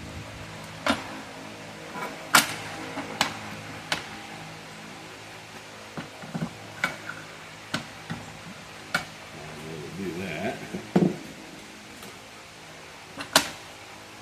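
Hydraulic hose crimper's jammed die drawer being pried and knocked at: a dozen or so sharp, separate clicks and knocks, irregularly spaced.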